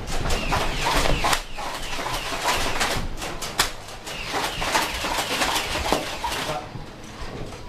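Nerf foam-dart blasters being fired and cocked: scattered sharp pops and clicks, several close together about a second in and again around three seconds in, over rustling and scuffling from players moving.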